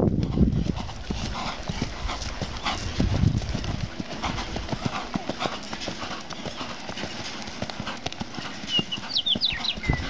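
Hoofbeats of a ridden Paint gelding moving at a steady working gait over dirt and grass, a continuous run of dull strikes.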